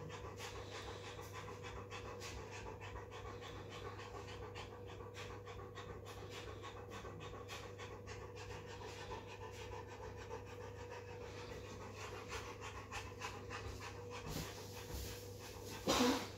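A Newfoundland dog in first-stage labour panting fast and steadily, the huffing and puffing of early labour, over a faint steady hum. A brief louder noise comes near the end.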